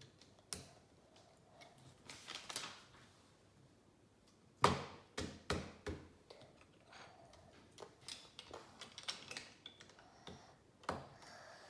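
Plastic Lego pieces being handled and pressed together: scattered light clicks and rattles, with a quick run of sharper clicks about halfway through.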